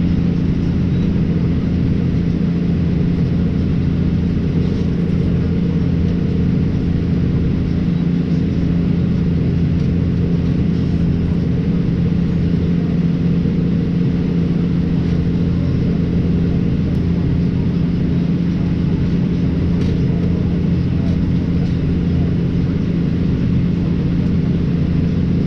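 Tractor engine running steadily while baling hay.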